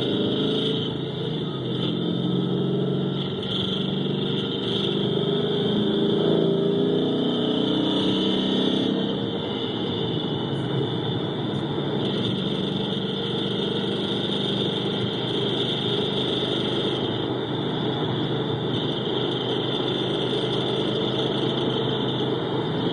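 The 5.0 Coyote V8 of a 2011 Ford Mustang GT running, heard through amplified microphones fixed to the cylinder banks, with a knocking noise in the engine. The owner suspects piston slap, a noise his own car makes when cold.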